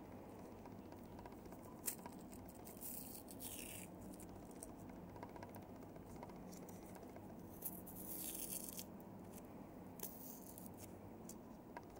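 Faint handling and tool noise on a small device being taken apart: a sharp click about two seconds in, then short scraping rasps around three, eight and ten seconds in, over a steady low hum.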